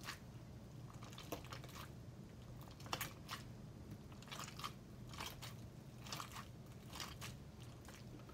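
Hands squeezing and kneading wet, glossy glitter slime: faint sticky pops and crackles as the slime is pressed and pulled apart, coming irregularly about once or twice a second.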